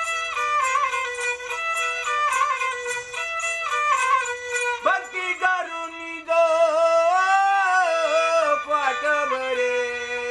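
Instrumental interlude of a Marathi devotional song: a melody instrument plays held, stepping notes over a quick percussion beat, then about halfway a long wavering note slides up and down until the next phrase.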